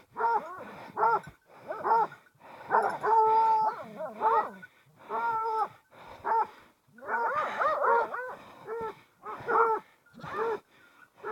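Hunting hounds baying in short repeated bawls, about one or two a second, with one longer drawn-out bay about three seconds in and several voices overlapping around seven to eight seconds: dogs working a wild boar at bay.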